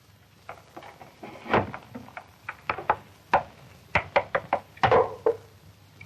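Small wooden keg being handled on its stand: a run of irregular wooden knocks, bunched into a quick cluster in the second half.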